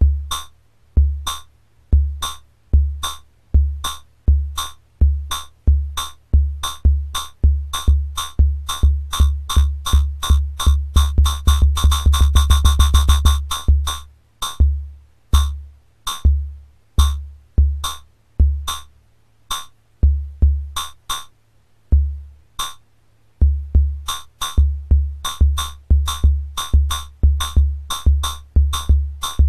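Homemade CMOS logic-chip synthesizer playing a drum-like pattern stepped by an 8-stage shift register: low kick-like thumps, each with a sharp click. The hits speed up until they nearly run together about halfway through, then fall back to a slower, uneven pattern that shifts as the oscillator speeds change.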